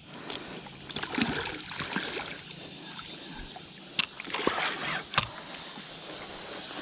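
Small boat on the water: a steady hiss of wind and water with soft handling rustles, and two sharp clicks about four and five seconds in.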